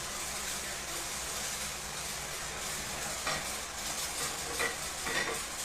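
Steady hissing background noise, with three short clicks or knocks in the second half.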